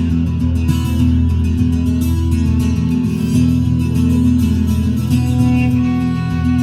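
Music with guitar, plucked and strummed, playing steadily.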